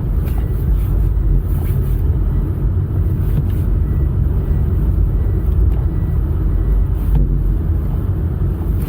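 Toyota Corolla driving on a snowy road: a steady, loud low rumble of engine and road noise.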